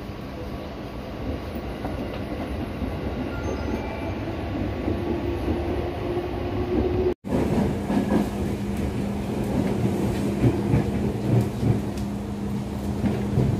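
Interior of an ex-Tokyo Metro 5000 series electric commuter train running between stations: a steady rumble with a low hum and wheels clattering on the rails, and a faint whine rising in pitch for a few seconds. The sound cuts out for a split second about seven seconds in, and the clatter and knocks are busier afterwards.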